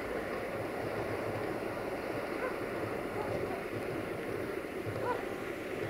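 060-DA (LDE2100) diesel-electric locomotive with its Sulzer V12 engine working steadily as it hauls a container freight train at low speed, a dense, even running noise. A few faint short squeaks come in about halfway through and near the end.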